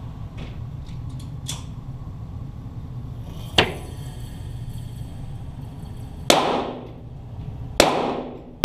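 .22 Walther GSP target pistol shots in an indoor range, heard from beside the target: two sharp reports about a second and a half apart in the last third, each ringing off in the room. A single shorter crack comes a little before halfway, over a steady low hum.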